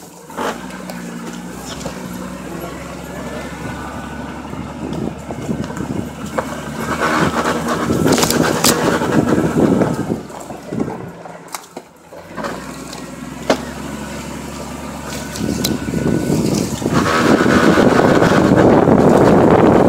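1999 Jeep Cherokee driving slowly on a dirt forest trail: the engine runs steadily while the tyres crunch over dirt, leaves and sticks, growing louder and rougher in surges around seven seconds in and again from about sixteen seconds, with a brief lull near eleven seconds.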